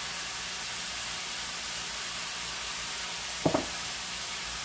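Ground meat sizzling steadily as it browns in an electric skillet. One short knock about three and a half seconds in.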